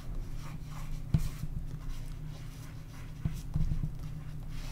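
Soft pastel and fingertips rubbing and scraping across paper, with a sharp tap just over a second in and another few taps a little after three seconds, over a steady low hum.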